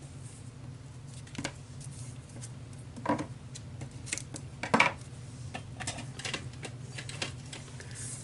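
Scattered light clicks and taps from paper and adhesive being handled while Tombow glue and score tape are put on a layered scrapbook piece, over a steady low hum.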